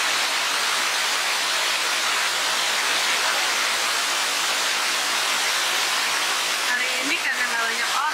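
Lata Iskandar waterfall: a steady rush of water cascading down its rock tiers.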